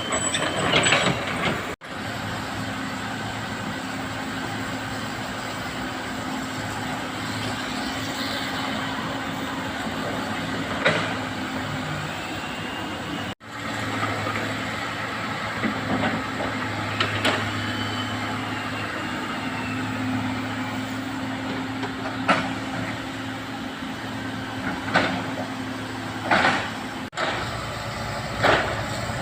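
Komatsu hydraulic excavator running steadily under load, its engine a constant hum, with scattered short metallic clanks and squeals from the bucket and tracks while it loads soil.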